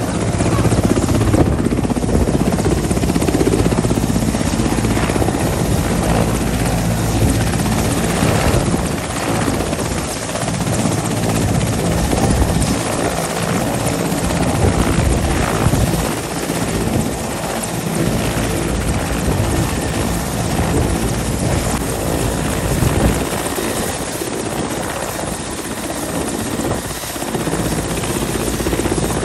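Mil Mi-17 transport helicopter running on the ground with its main and tail rotors turning: a loud, steady turbine whine and rotor noise, swelling a little at times.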